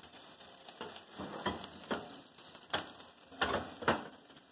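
Metal sheet pan being turned around on an oven rack: about half a dozen light scrapes and clanks, spaced irregularly.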